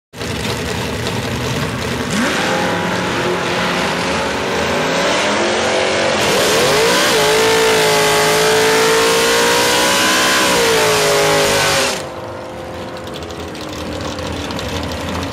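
All-aluminium 5.4-litre V8 of a propane-fuelled Mustang drag car doing a burnout: the engine revs up and is held at high rpm with the rear tyres spinning. About twelve seconds in, the engine drops off suddenly to a lower, steadier sound.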